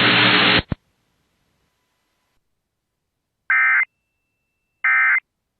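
Emergency Alert System SAME header data bursts: two short, identical electronic buzzing chirps about 1.4 s apart, after a pause of near silence. At the start, broadcast audio cuts off abruptly.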